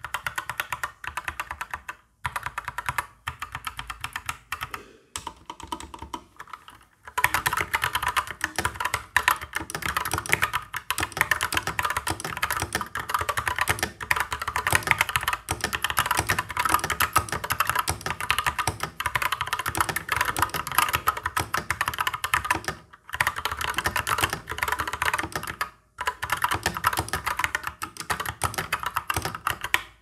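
Typing on a Skyloong SK61 mechanical keyboard with Gateron Brown switches and PBT keycaps: dull, non-clicky key strokes. The typing is slower and broken for the first seven seconds, then turns fast and continuous with a couple of short pauses.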